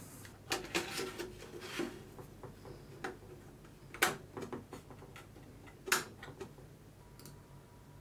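Plastic drive tray of a QNAP TVS-472XT NAS clicking as it is handled and slid into its drive bay. Soft rattling clicks come first, then three sharp clicks a second or two apart as the tray seats and latches.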